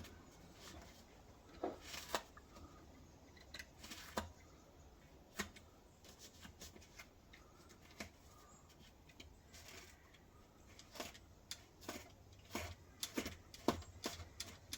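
Faint, scattered rustling and light taps of foam padding and carpet being handled and fitted around a vehicle's rear seat box, a little louder about two seconds in, about four seconds in, and near the end.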